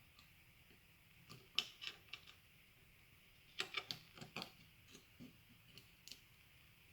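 Light clicks and taps of small gel blaster gearbox parts being handled on a workbench, in two quick clusters about a second and a half and about four seconds in, with a few single ticks after.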